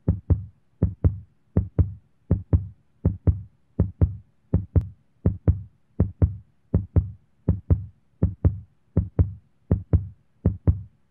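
Heartbeat sound effect: paired low thumps, lub-dub, repeating steadily at about four pairs every three seconds.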